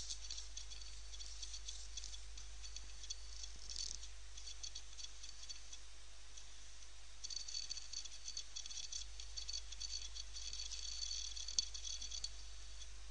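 Faint, irregular rattling and crackling from a computer copying files off an installation DVD onto its hard disk, denser in the second half, with one sharp click near the end.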